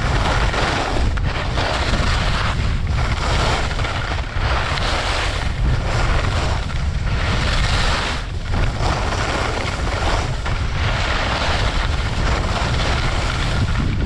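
Strong wind buffeting on the microphone while riding down a groomed slope, with the hiss and scrape of edges carving packed snow that swells and fades with each turn, about every second or two.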